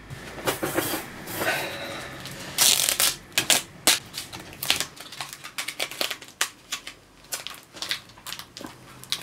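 Papier-mâché puppet arms with wire loops handled and turned over in the hands, crinkling and rustling with irregular sharp crackles, the loudest about three and four seconds in.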